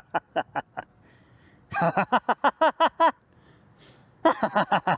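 A man's forced, rhythmic 'ha-ha-ha' laughter done as laughter yoga: three bouts of quick, evenly spaced laughing syllables with short pauses between.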